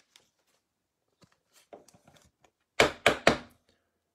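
A trading card being put into a rigid clear plastic card holder: faint light ticks and scrapes, then three sharp plastic knocks in quick succession about three seconds in.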